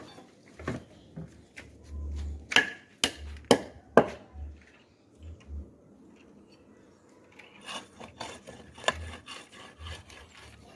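Hand work on building materials: a run of sharp knocks, clustered in the first four seconds with one more near the end, along with scraping and rubbing.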